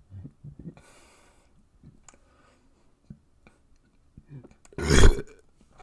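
Soft mouth clicks and a breath, then one loud, short burp about five seconds in.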